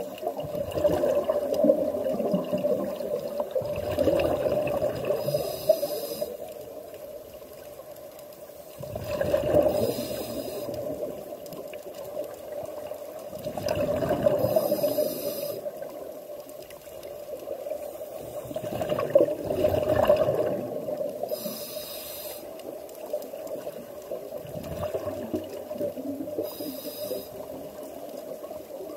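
Scuba diver breathing underwater through a regulator: each breath brings a hiss from the regulator and a gurgling rush of exhaled bubbles. The cycle repeats about every five seconds.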